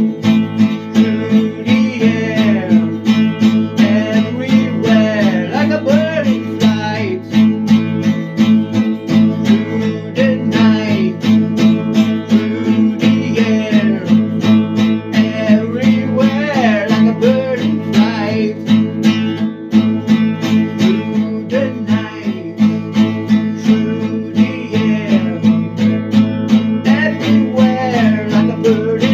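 Acoustic guitar strummed in a steady fast rhythm, with a wavering melody line carried over it.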